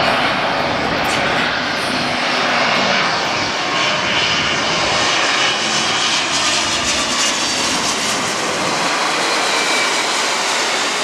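Boeing 777 airliner's jet engines passing low overhead on final approach, a loud steady rush with a faint whine that slides down in pitch as it goes by.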